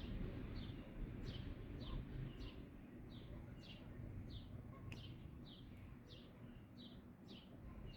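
A bird repeating a short, high chirp over and over at a steady pace of about two to three a second, over a low background rumble.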